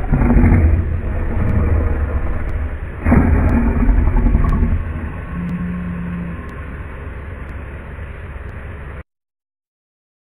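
Male lion roaring: two long, loud, deep roars about three seconds apart, then quieter sound until it cuts off suddenly about nine seconds in.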